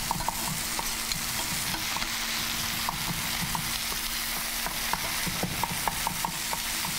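Food searing in a very hot pan, a steady sizzle, with a chef's knife knocking irregularly on a wooden cutting board as fresh herbs are rough-chopped.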